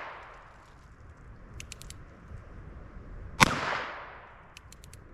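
A single-action Colt revolver fired once, about three and a half seconds in, the shot echoing and dying away over about a second. Before and after the shot comes a quick run of four light clicks, the hammer being cocked.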